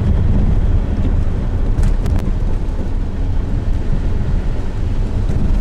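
Car driving along a road, a steady low rumble of engine and tyre noise heard inside the cabin.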